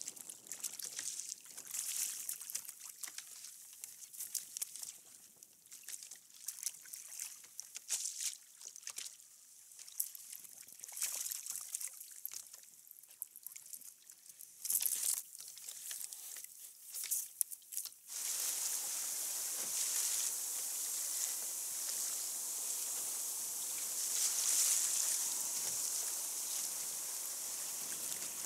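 Water on a kayak hull: irregular small splashes, drips and crackles at first, then about eighteen seconds in a sudden change to a steady rushing hiss of water streaming past the hull.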